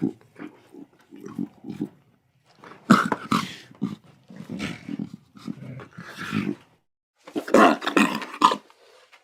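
Lion cubs growling at play in a run of short, rough bursts with brief pauses. The loudest clusters come about three seconds in and again near the end.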